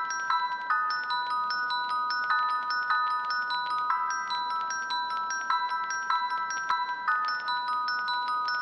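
Background music: a quick, repeating melody of bright, bell-like chime notes in the style of a glockenspiel.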